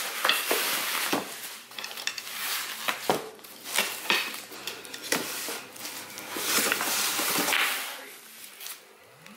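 Plastic wrapping rustling and crinkling, with irregular light knocks and clicks of wooden dowels and packaging being handled during an unboxing; the rustling swells about two-thirds of the way through and dies down near the end.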